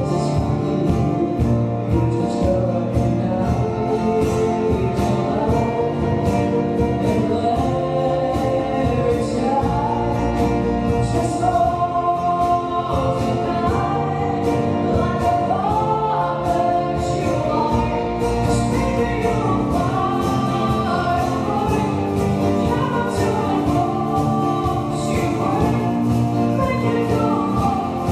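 Live acoustic band: a woman singing lead over acoustic guitar, upright double bass, drum kit and keyboard, with the drums keeping a steady beat.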